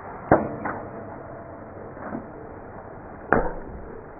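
Soda cans struck by a .22 rifle bullet and knocked over: two sharp cracks about three seconds apart, with fainter knocks between.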